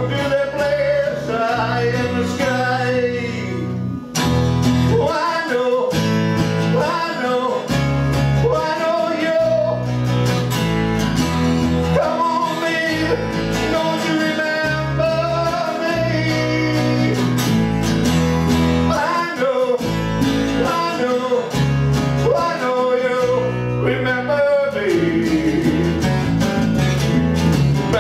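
Acoustic band playing a song: plucked and strummed acoustic guitars over a steady bass line, with a melody line bending on top.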